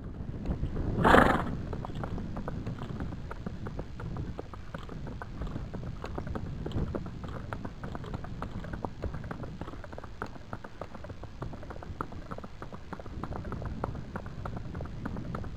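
A gaited horse's hooves on a sandy dirt track, a quick, even run of hoofbeats. About a second in, the horse gives one short, loud snort.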